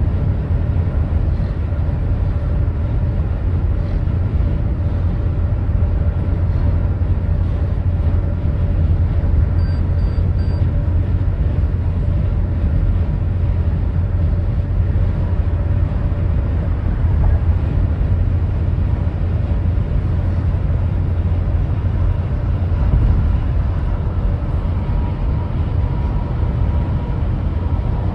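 Steady low rumble of a vehicle on the move, unchanging throughout. Three short high beeps sound in quick succession about ten seconds in.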